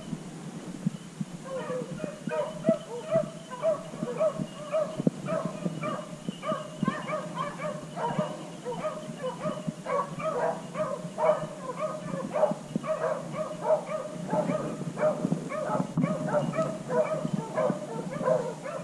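Beagles baying on a rabbit's trail: a rapid, continuous run of short pitched yelps that begins about a second and a half in.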